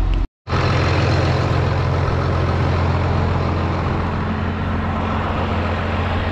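Tractor engine running steadily with a strong low hum, cutting in after a brief dropout just after the start.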